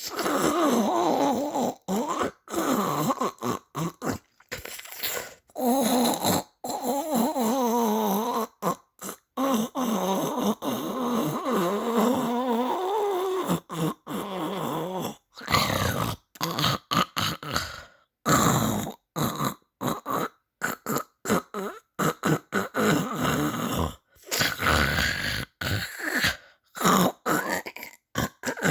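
Snoring and grunting sounds with a wavering pitch, broken up by many abrupt silent gaps. The gaps come more often in the second half, as short choppy bits.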